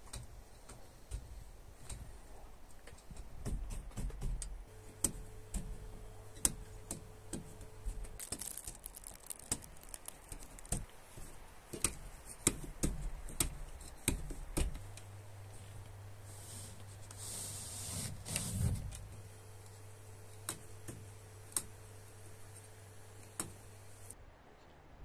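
Hand-knotting a carpet on a vertical loom: irregular sharp clicks and taps of the weaver's hook-knife and tools against the warp threads and knotted pile, with a faint steady hum in parts.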